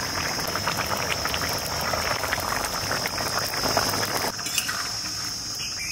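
Egg and cauliflower curry bubbling at a simmer in a kadai over a wood fire, a steady crackling and popping. The sound changes abruptly about four seconds in.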